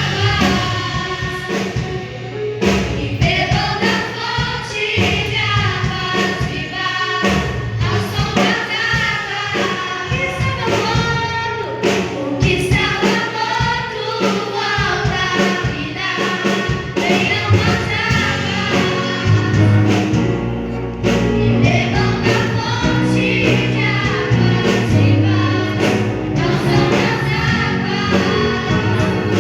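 A choir singing a gospel song over instrumental backing with a steady beat and bass.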